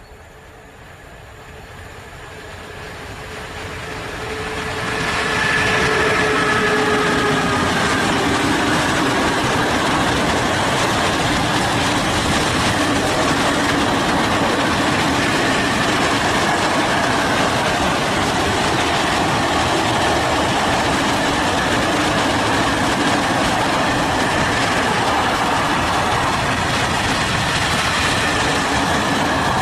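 Freight train behind an ET22 electric locomotive approaching and passing, growing louder over the first five seconds, with a few tones falling in pitch as the locomotive goes by. Then a long string of open freight wagons rolls past steadily, wheels running on the rails.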